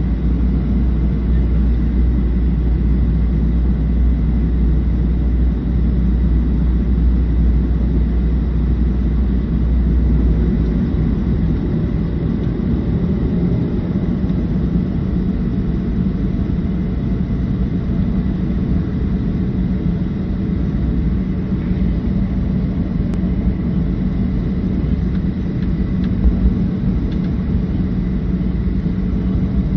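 Cabin noise of a Boeing 737-700's CFM56 jet engines during departure, a steady loud rush with a hum. A deep low rumble underneath cuts off suddenly about eleven seconds in.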